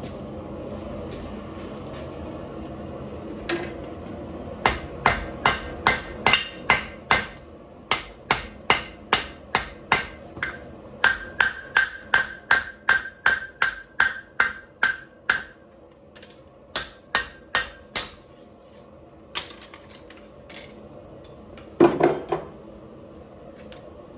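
Hand hammer striking hot 5160 steel on an anvil: a long run of blows at about two a second, some leaving a ringing tone, then a few scattered strikes and a loud metallic clatter near the end. A steady roar from the forge runs underneath.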